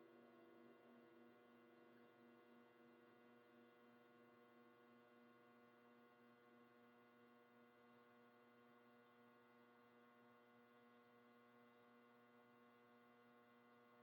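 Near silence: a faint steady electrical hum from the recording setup, with the last faint ringing of a struck cymbal fading out in the first couple of seconds.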